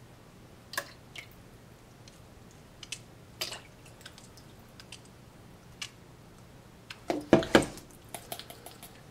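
Scattered light clicks and taps of plastic measuring spoons against a glass measuring cup while tablespoons of maple syrup are spooned into water, with a louder cluster of knocks about seven seconds in.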